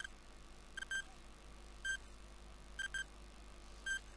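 Countdown timer sound effect: faint, high-pitched electronic beeps about once a second, alternating a single beep with a quick double beep.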